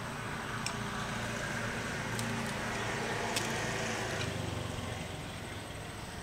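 A passing road vehicle swelling and fading over about four seconds. Over it come a few light metal clicks from a C-clamp being tightened onto a brake-disc bolt.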